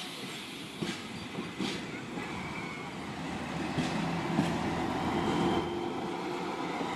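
Narrow-gauge diesel locomotive rolling slowly past at low power, its engine drone growing louder as it nears, with a few sharp clanks from the running gear.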